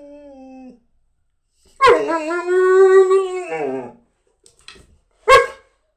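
A Cane Corso dog makes a faint call that trails off, then a loud, drawn-out vocal call of about two seconds that holds its pitch and drops at the end. About five seconds in comes one short, sharp yelp.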